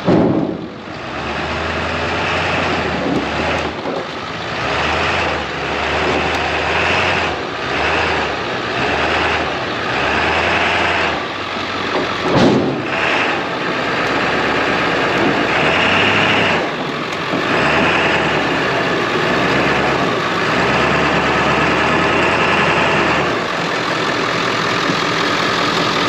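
Diesel engine of an old Ford OBS crew-cab pickup running as the truck drives slowly forward, its low exhaust note swelling and dropping off about once a second as the throttle comes on and off, with a sharp knock about halfway through.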